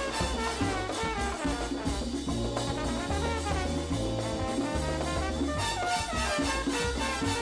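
Brass-led jazzy dance music: trumpets and trombones playing melodic lines over a bass line and drums.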